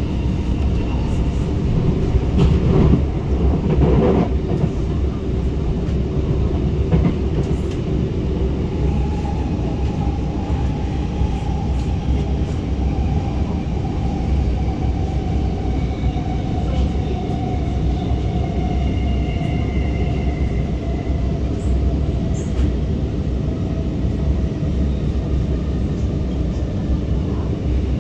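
R151 metro train running at speed, heard from inside the carriage: a steady rumble of wheels on rail with a few louder knocks early on, and a thin motor whine that slowly falls in pitch from about ten seconds in.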